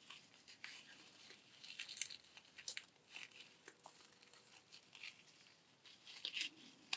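Hands handling a camera neck strap and plastic packaging wrap: faint, scattered crinkling and rustling with small clicks.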